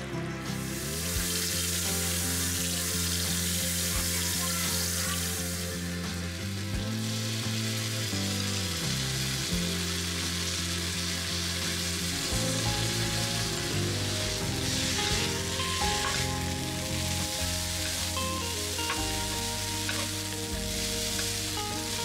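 Noodles sizzling as they pan-fry in hot oil, turned with chopsticks and a wooden spatula. The sizzle starts about half a second in and is loudest for the first few seconds.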